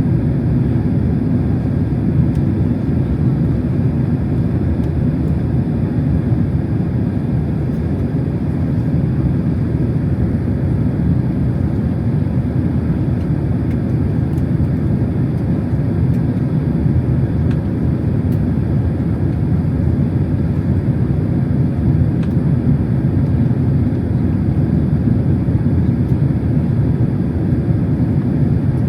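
Steady engine and airflow noise heard inside the cabin of a Boeing 767-300 airliner in flight, a constant low rumble.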